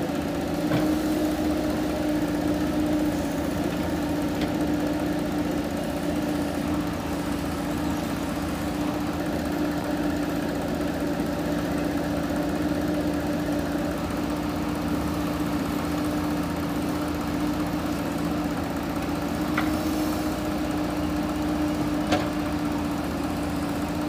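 Diesel engine of a JCB 3DX backhoe loader running at a steady speed while the backhoe digs, with a few short knocks, the sharpest near the end.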